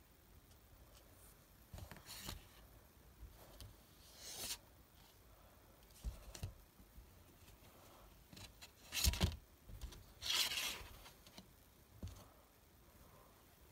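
Paper and card packaging being handled: rustling and scraping of the printed booklet and papers, in a string of short swishes, the loudest about nine and ten and a half seconds in.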